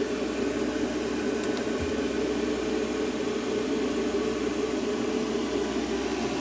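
Internal cooling fan of a TOPDON T120A battery charger/power supply running steadily after the charging output has been switched off: its normal cool-down run. A small click sounds near two seconds in.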